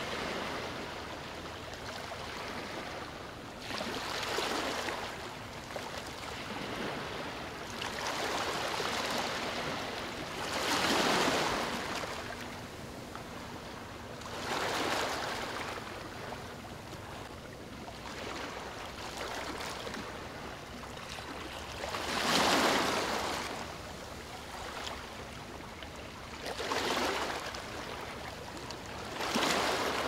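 Ocean waves washing in: a steady rush of surf that swells and falls back roughly every three to four seconds, the biggest waves about eleven and twenty-two seconds in.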